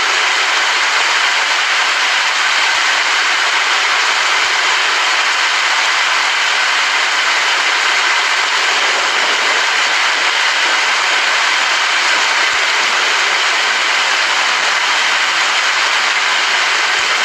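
Steady heavy rain, a dense even hiss with no thunder or breaks.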